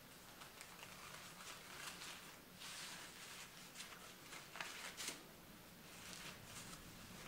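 Faint rustling and crinkling of a paper napkin being pleated and folded by hand, with a few sharper crackles near the middle.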